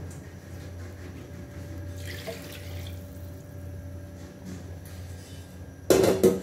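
Watery rice and masala in a pan on the stove giving faint liquid sounds over a low steady hum, with a loud clatter near the end.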